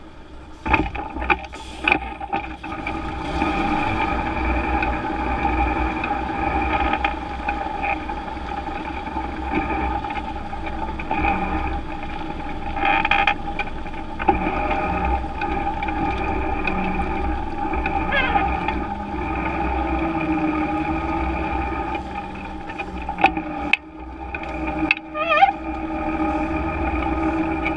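Tatra 815 heavy off-road truck heard from under its rear chassis as it drives over dirt and stones: a steady drone of engine and drivetrain, with sharp knocks and rattles from the suspension and chassis a few times, mostly near the start and about 23 seconds in.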